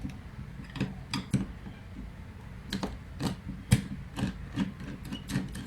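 Screwdriver working the terminal screws on a distribution board's main switch, making irregular sharp clicks and light scrapes of metal on plastic. The loudest click comes a little past the middle.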